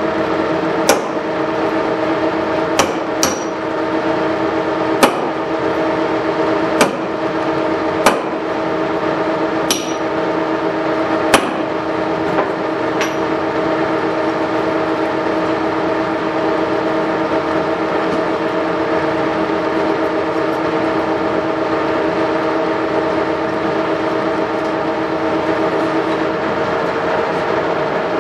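Monarch engine lathe running, with a steady geared whine of several tones, while the tool turns down a welded-up sealing surface on a tractor drive-axle universal joint. Sharp single clicks come every second or two through the first half. Near the end the lowest tone of the whine drops out.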